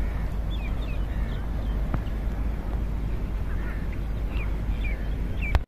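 Birds calling in short, scattered chirps over a steady low rumble, with a sharp click at the very end.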